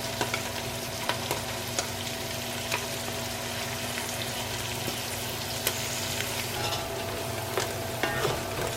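Onion and spice masala sizzling in hot oil in a pan, a steady frying hiss with scattered small pops and clicks.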